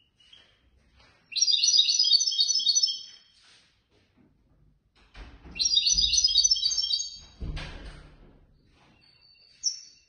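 European goldfinch singing: two bursts of rapid, high twittering phrases. Low thumps and rustling come with the second burst, and a short high call follows near the end.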